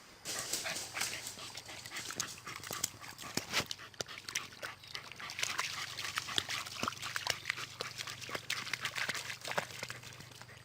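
Dogs, heard amid a dense, uneven run of short crackling noises.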